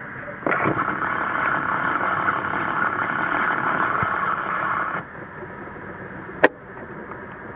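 CFM LEAP-1A turbofans of an Airbus A321neo running at taxi power, a steady rushing whine that jumps louder about half a second in and drops back abruptly after about five seconds. A single sharp click comes near the end.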